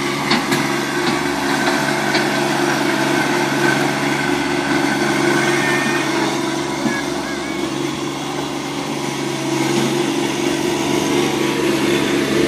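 John Deere compact tractor's diesel engine running steadily at an even pitch as it works its front loader, with a few light clicks in the first couple of seconds.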